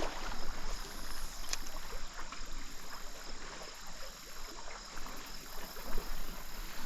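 Trout stream water sloshing and running close to the microphone, an uneven splashy rush without a steady rhythm.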